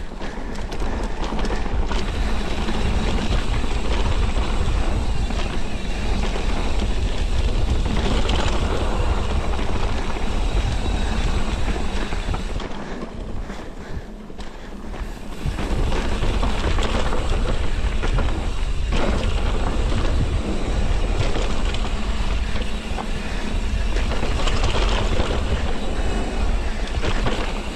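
Wind rushing over the camera microphone and mountain-bike tyres rolling over a dirt trail on a fast descent, with knocks and rattles from the bike over bumps. It goes quieter for a couple of seconds about halfway, then picks up again.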